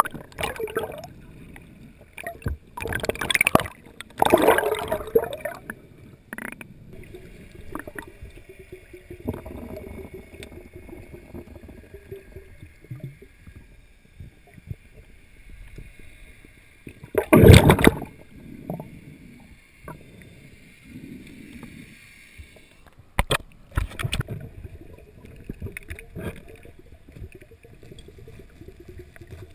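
Water gurgling and sloshing around an underwater camera, broken by several louder rushing bursts, the loudest a little past halfway, and a few sharp clicks later on.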